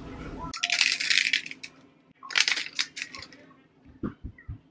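Seasoning rattling out of a spice shaker shaken over raw chicken tenders, in two bursts. A few soft thumps follow near the end.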